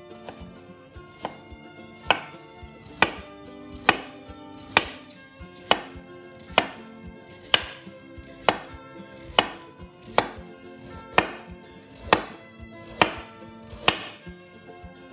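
Kitchen knife chopping food on a cutting board in single, evenly spaced strokes about once a second, starting about two seconds in, over soft background music.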